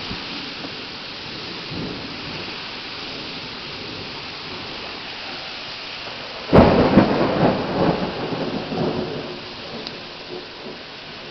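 Heavy rain pouring steadily; about halfway through, a sudden loud thunderclap crashes and then rumbles away over a few seconds.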